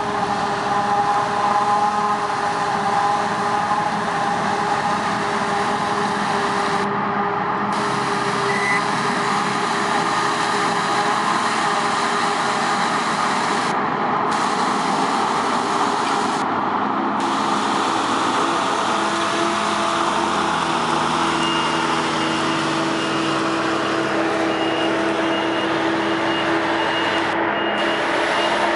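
Forage harvester running under load, chopping standing corn and blowing silage into a silage truck, mixed with the truck's diesel engine: a steady, loud machine drone. Over the last several seconds a faint repeating high beep sounds.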